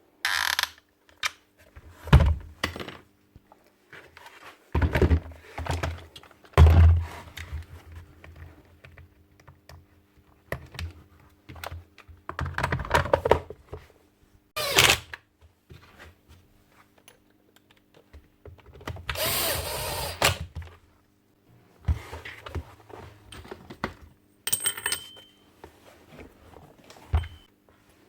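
Irregular knocks, clunks and clicks of metal and plastic rotary-hammer parts being handled and fitted by hand, with one longer scraping, rustling stretch about two-thirds of the way through. A faint steady hum runs underneath.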